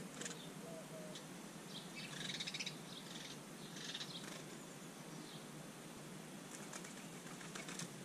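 Small garden birds' wings fluttering as they fly to and from a bird bath, in two short bursts about two and four seconds in, with a run of lighter wingbeats near the end as a larger bird lands on the rim.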